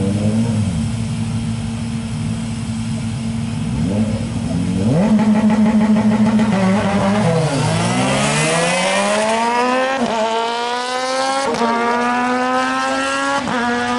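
Drag-racing motorcycles revving and blipping their engines on the start line, then launching about seven and a half seconds in. The engine note climbs hard, dropping briefly and climbing again at three quick upshifts.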